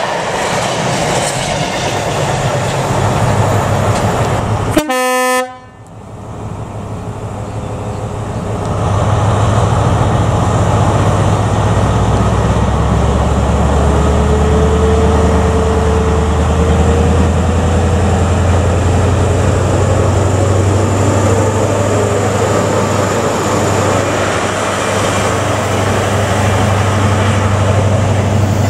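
A container freight train runs past with rail and wagon noise. About five seconds in there is a short horn note. Then a Class 43 HST high-speed train approaches and passes, with the low, steady drone of its power car's diesel engine.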